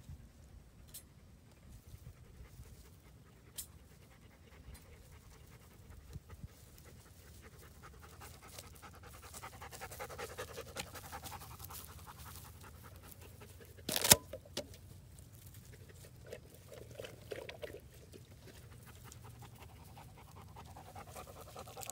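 A dog panting steadily, louder in the second half, with one sharp snap or click about two-thirds of the way through.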